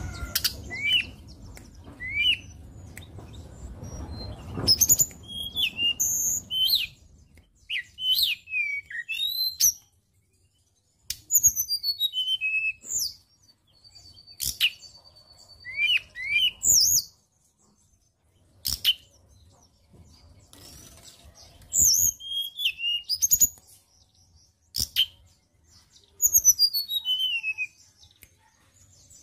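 Hill blue flycatcher (tledekan gunung) singing: short phrases of high, clear whistled notes, some running quickly down the scale, separated by brief pauses.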